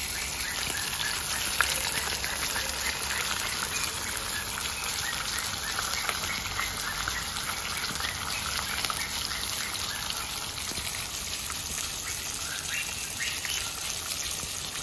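Whole tilapia shallow-frying in hot oil in a pan: the oil sizzles and crackles steadily, with a few sharper pops near the end.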